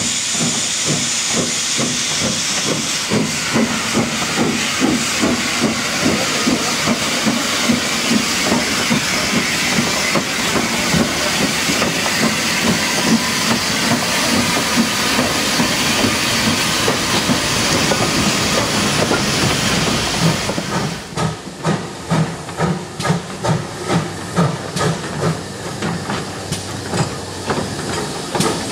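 Austerity 0-6-0 saddle-tank steam locomotive Cumbria working past with loud, steady steam hissing over a faint rhythmic chuff. About twenty seconds in, the hiss drops away and the clear, evenly spaced exhaust beats of GWR Collett 0-6-0 No. 3205 take over, a little over one a second.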